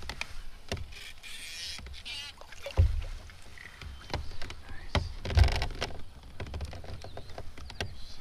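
Knocks and thumps on a kayak hull with water splashing as a hooked largemouth bass is brought alongside and landed; two louder thumps come about three and five and a half seconds in.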